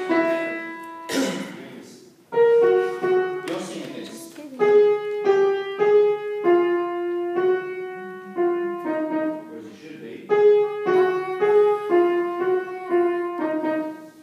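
Piano picking out a melodic line note by note, a short phrase of the choral part, with two brief hissy rushes of noise in the first few seconds.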